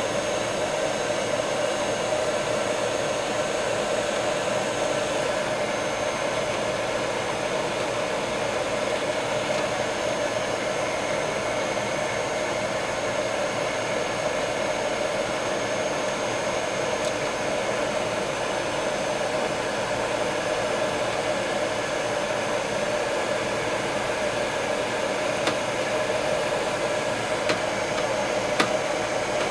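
Handheld hot-air blower running steadily, with a rushing blow and a faint high whine. It is warming bedding-compound resin in an aluminium pie plate so that it thins and spreads, to mix better with the hardener. A few light clicks near the end.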